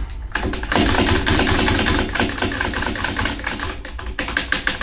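Dense, continuous scratchy rustling, over a steady low hum: fabric rubbing right against the microphone while hands work grease into a rifle action's locking-lug recesses.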